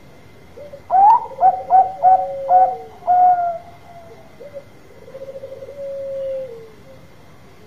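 Bangkok-strain zebra dove (perkutut) singing. About a second in comes a quick run of about five loud rising notes, ending in a held note; then a softer, rolling, trilled coo that falls at the end.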